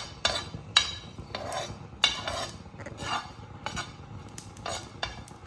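A utensil scraping and knocking on a hot tawa as carom seeds and garlic cloves are tossed and stirred while dry-roasting, in a series of short, irregular strokes.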